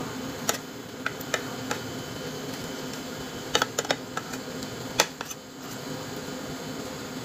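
Metal spoon and fork clinking and scraping against a ceramic plate in scattered sharp taps, some in quick clusters, over a steady background hum.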